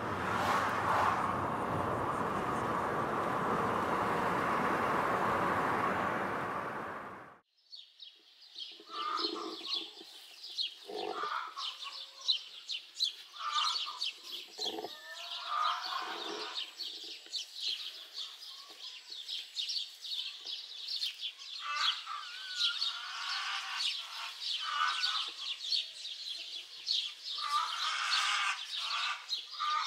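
Road noise inside a moving car, a steady rushing hiss that cuts off sharply after about seven seconds. Then steady, rapid high-pitched bird chirping, with short lower calls every few seconds.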